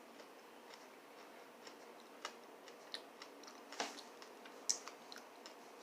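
Quiet, irregular clicks and small crunches of someone eating close to the microphone, a few sharper clicks standing out in the middle.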